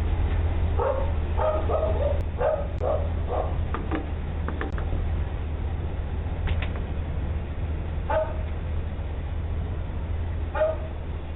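A dog barking, heard through a doorbell camera's microphone: a quick run of barks in the first few seconds, then two single barks near the end, over a steady low rumble.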